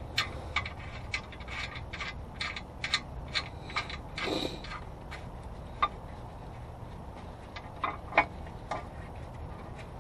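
Irregular sharp metallic clicks and clinks of hands working bolts and tools under a car, densest in the first few seconds, with a short scrape just after four seconds and a few louder clicks later on.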